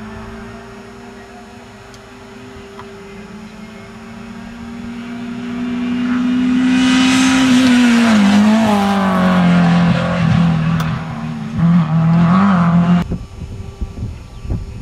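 Renault Clio rally car coming up the road under power. Its engine note swells and climbs in pitch as it nears, then drops as it passes close by and carries on driving away. The sound cuts off abruptly about thirteen seconds in.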